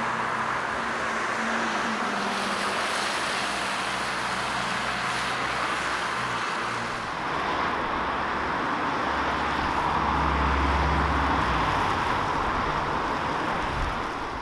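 Road traffic noise: a steady rush of passing vehicles with a low engine hum, swelling as a vehicle passes closer about ten seconds in.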